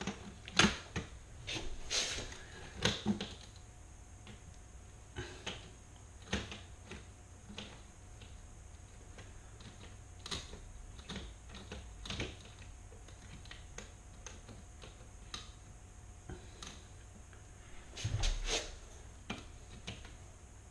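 Stainless steel Kerdi-Line linear shower drain grate being set into its channel and adjusted by hand against the tile: scattered light metallic clicks and taps. They come in a cluster in the first few seconds and another around eighteen seconds, with sparser ticks between.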